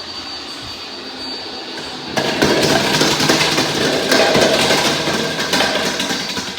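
Robot vacuum running with a steady motor hum and a thin high whine. About two seconds in, a loud clatter of many quick knocks starts, bowling pins being knocked over and tumbling, and fades out near the end.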